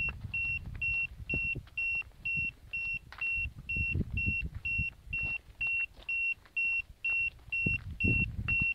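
Ojo Pro X3 long-range metal locator beeping steadily, about two short high beeps a second, over low rumbling and thumps.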